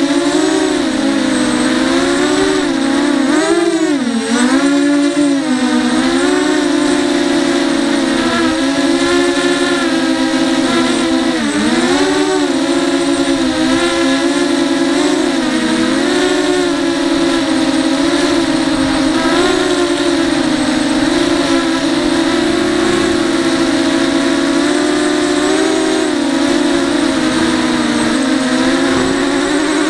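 ZMR quadcopter's motors and 5-inch bullnose propellers whining steadily in flight, heard close up from the onboard camera. The pitch dips and climbs back several times as the throttle changes.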